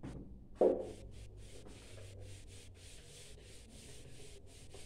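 Whiteboard being wiped clean with a handheld duster: quick back-and-forth rubbing strokes, each a short scratchy hiss. A brief louder thump comes about half a second in.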